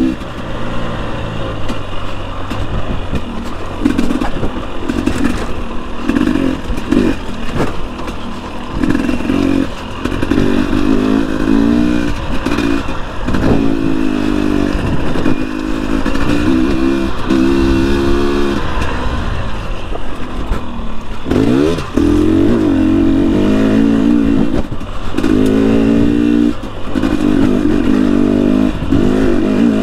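2021 Husqvarna TE250i's single-cylinder two-stroke engine being ridden on trail, the revs rising and falling over and over as the throttle is opened and closed, with scattered clattering knocks from the bike.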